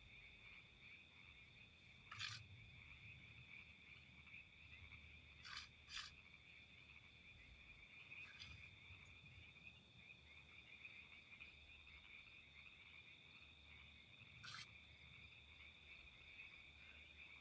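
Faint, steady high-pitched trilling of a night chorus of calling animals outside a tent, with a few soft clicks about two, five to six, and fourteen seconds in.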